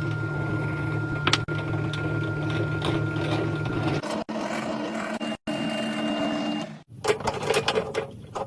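A small machine motor running steadily with a low hum and a faint whine, broken off abruptly several times, then a quick run of sharp clicks and knocks near the end.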